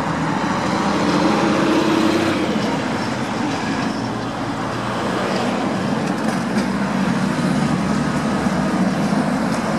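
Old articulated tram running past close by on its rails, a steady rumble of wheels and running gear.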